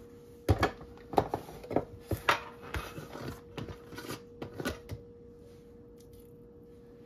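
Sharp knocks and clatter of a plastic jar of garlic paste being handled and opened, with a metal spoon clinking and scraping inside it; about ten hits over four seconds, then it settles.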